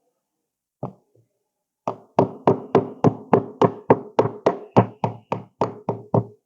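A single knock on wood, then from about two seconds in a steady run of sharp knocks on a wooden workpiece, about three a second, each ringing briefly.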